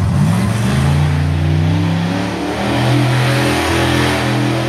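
Monster truck engine revving up in the first second, then held at high revs with brief dips, as the truck spins doughnuts.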